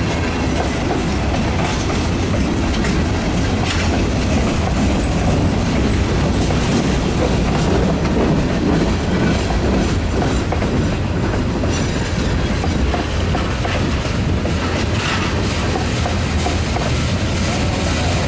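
Freight cars of a Norfolk Southern mixed freight train, mainly tank cars, rolling past close by: a steady rumble of steel wheels on rail with occasional clacks.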